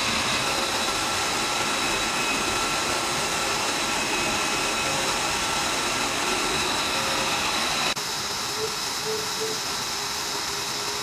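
F-22 Raptor's twin Pratt & Whitney F119 turbofan engines running at low power: a steady rush with several high whining tones. About 8 s in the sound cuts abruptly to a slightly quieter jet engine with a lower whine.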